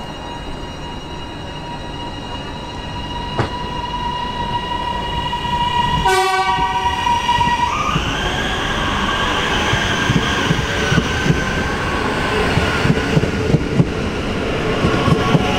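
High Capacity Metro Train electric multiple unit departing a station: a short horn-like tone sounds about six seconds in, then the train pulls away with a rising electric traction whine and clicks from the wheels, which come more often towards the end.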